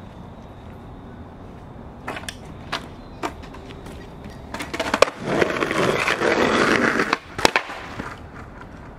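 Skateboard: a few sharp clacks, then the wheels rolling on an asphalt path for about two seconds, ending in more sharp clacks of the board.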